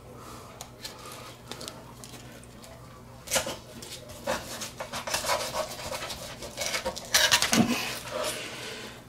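Fillet knife cutting down a mangrove snapper's rib cage, with scratchy, crackling scraping of the blade through bone and scales on a plastic cutting board. The cutting starts about three seconds in and is loudest near the end; the knife is not very sharp.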